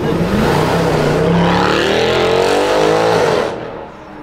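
Mercedes-AMG V8 sedan accelerating hard, its engine and exhaust rising steadily in pitch for about three seconds before the sound drops away suddenly.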